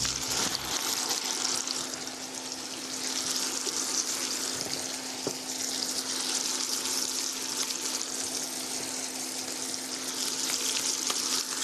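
Raw chicken pieces frying in melted butter in a pan: a steady sizzle with fine crackling pops.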